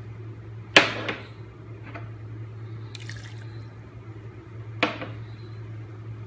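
Spoon stirring beef, spices and water in a karahi: wet liquid sounds with a few sharp clinks of the spoon against the pan, the loudest just under a second in and another near five seconds, over a steady low hum.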